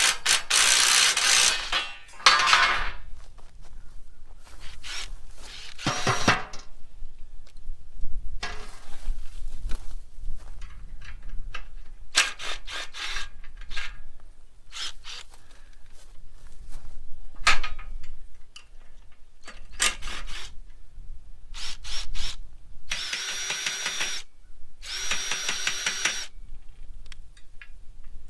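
A power drill with a socket running in short bursts to back out small bolts from metal rack tables, with sharp metal clicks and clanks between the runs.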